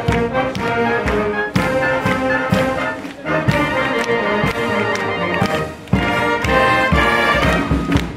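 A fire brigade wind band of saxophones, clarinets, trumpets and other brass playing a tune in full, with a steady drum beat.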